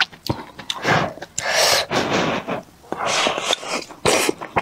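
Close-miked eating sounds from a bowl of hot sour cabbage fish soup: a few long slurps of soup and noodles, with soft chewing and chopstick clicks between them.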